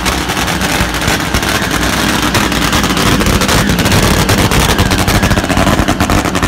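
Drag-racing motorcycle engine running loudly through open exhaust, a dense rapid rattle of firing pulses without a break.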